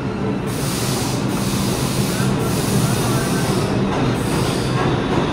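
Subway train of R33 and R36 cars running on the tracks: a loud steady rumble, a hiss that comes in about half a second in, and faint wheel squeal near the middle.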